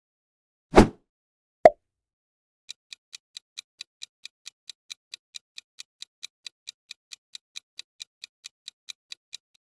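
A quick whoosh and a short pop as the quiz screen changes. Then a countdown timer's clock-tick sound effect ticks evenly, about four ticks a second.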